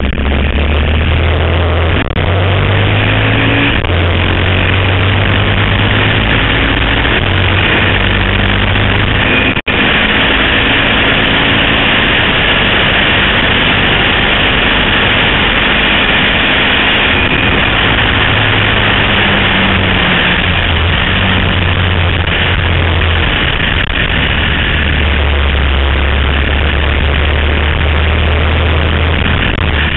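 Harley-Davidson XR1200 race bike's air-cooled V-twin engine running hard at racing speed, heard from a camera mounted on the bike, with a loud rush of wind. The engine note steps up and down several times, and the sound cuts out for an instant about ten seconds in.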